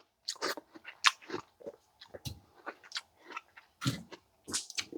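A person chewing and biting watermelon: a string of short, uneven crunching sounds.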